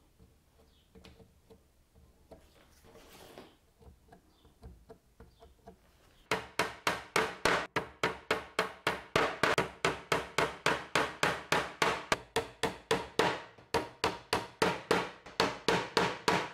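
Claw hammer tapping wooden dowel pins into glued holes in a timber frame: a steady run of light strikes, about four a second, beginning about six seconds in after faint handling sounds.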